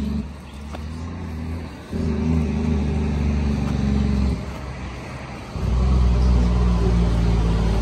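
A motor vehicle's engine running. It drops back twice and picks up again, and is loudest near the end.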